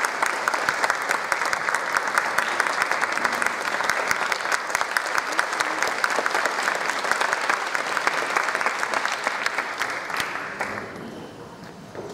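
Audience applauding, many hands clapping at once, which dies away near the end.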